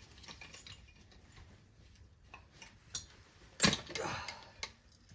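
Metal clicks and taps as the parts of a Mercury 4 hp outboard engine are worked loose by hand, with one loud knock and short clatter about three and a half seconds in.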